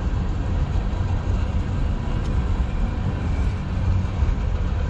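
Freight train tank cars rolling past, a steady rumble of steel wheels on the rails.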